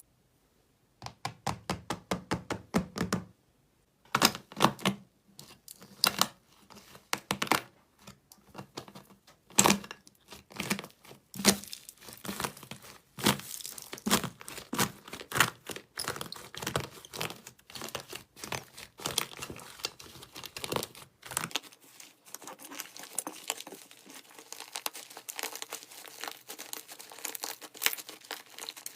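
Slime squeezed and pressed by hand, making sharp crackling and popping sounds. It opens with a quick run of clicks, then goes on in irregular loud crackles, and turns into a denser, softer crackle about two-thirds of the way through.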